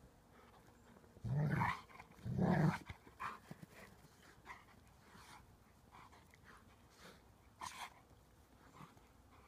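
Dogs play-wrestling, with two loud, low-pitched dog vocalisations about a second and two and a half seconds in, followed by several short, fainter sounds.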